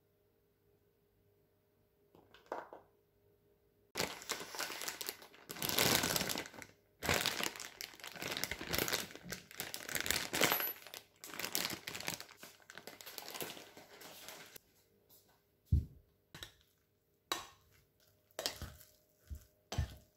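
Plastic zipper freezer bags crinkling and rustling as sliced chili peppers are packed into them, for about ten seconds. Then a few separate knocks and clicks near the end.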